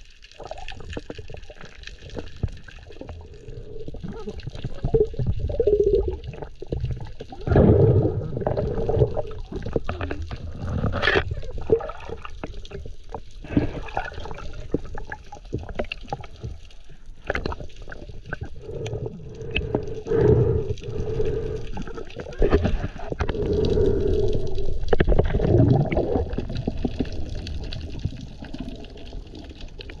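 Muffled underwater water noise picked up through a camera's waterproof housing: water swishing and gurgling in uneven surges.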